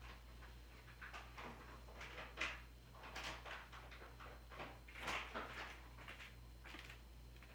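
Irregular rustling and scraping sounds, with one sharper knock a little over two seconds in, over a steady low hum.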